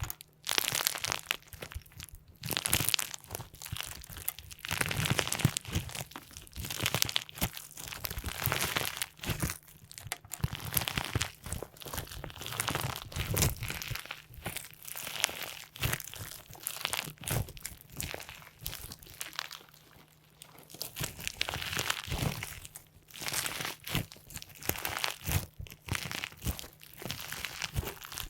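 Slime being squeezed and pressed by hand, with crackling, crunching pops in irregular clusters every second or two.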